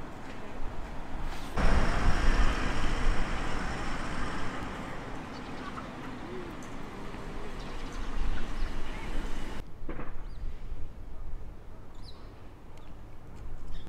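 Outdoor street ambience: a steady rushing noise with a low rumble, like wind or passing traffic, starts abruptly about two seconds in and cuts off sharply about eight seconds later, leaving quieter background sound.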